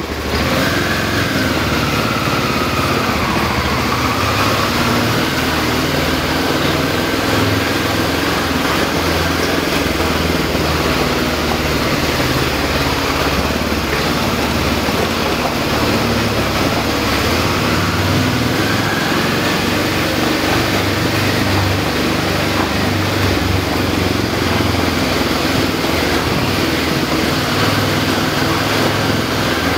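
Motorcycle engine running steadily under way, with road and wind noise, heard from the rider's seat inside a rock-cut tunnel.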